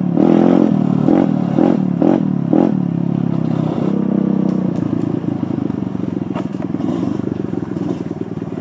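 Dirt bike engine being ridden, close to the microphone: the throttle opens and closes in quick pulses for the first three seconds or so, then holds steadier.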